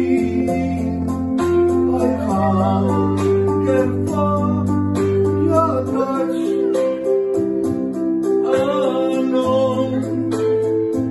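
A song with acoustic guitar accompaniment and a man's singing voice, with steady held bass notes under a gliding vocal line.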